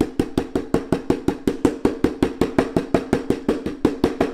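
Veal cutlet being pounded flat under plastic wrap with a flat-faced stainless steel meat pounder on a wooden butcher block: fast, even thuds, about six or seven a second.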